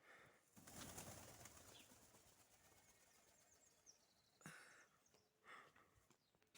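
A flock of pigeons taking off, a burst of wing flapping about half a second in that fades over the next couple of seconds. A few short, fainter sounds follow later.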